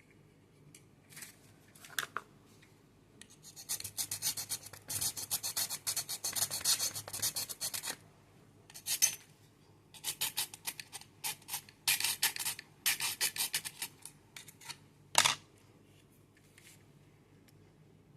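Hand scraping or filing of a small hard part: runs of quick rasping strokes with short pauses, and one sharper, louder stroke about fifteen seconds in. No motor is running.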